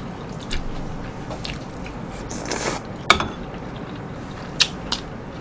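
Quiet eating at a table: chewing and mouth sounds, with a few scattered light clicks and taps of spoons against ceramic bowls, the sharpest about three seconds in.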